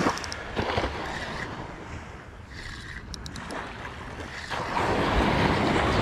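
Surf washing onto the beach with wind on the microphone, swelling louder about four and a half seconds in, while a spinning reel is cranked. A few faint clicks come about three seconds in.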